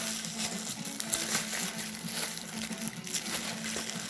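Plastic packaging crinkling and rustling as a parcel is unwrapped by hand, with a steady low hum underneath.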